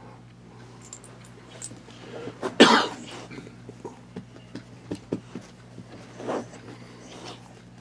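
A person coughs once, loudly, a little under three seconds in, followed by a softer, shorter throat sound about six seconds in; a few small clicks come between.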